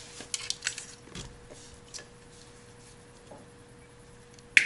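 A bundle of power-seat wiring harness and plastic connectors being handled: light rattling and clicking in the first second or so, then a single sharp click near the end.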